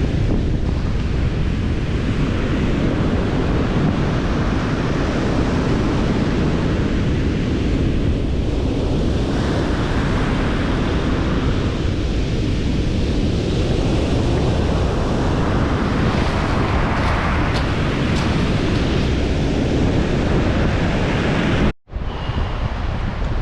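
Strong wind rumbling and buffeting on the microphone, with sea surf washing beneath it. The sound cuts out for an instant near the end.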